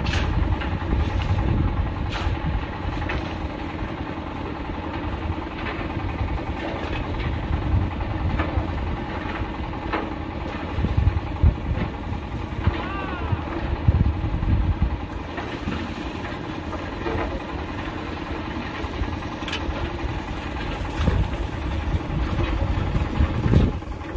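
Two concrete mixers running steadily, one mixing concrete and the other mortar, with a few short clinks and scrapes every few seconds.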